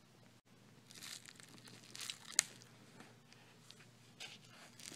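Close handling noise: irregular rustling and crackling with scattered clicks, the sharpest about two and a half seconds in, from hands working at the convertible top's fabric.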